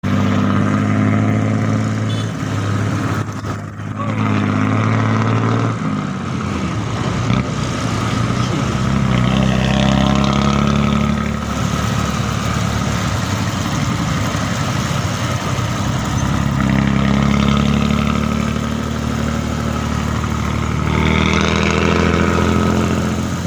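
Hino AK bus chassis's diesel engine running through an exhaust with a rare deep snoring ('ngorok') note. The revs rise and fall several times.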